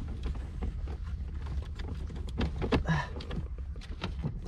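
Scattered light clicks and knocks as hands work at a car's plastic center console trim and gear shifter, over a steady low hum.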